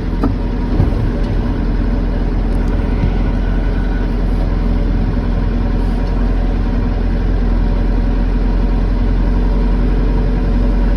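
Backhoe's diesel engine running steadily while the front bucket pushes snow, with a couple of light knocks under a second in.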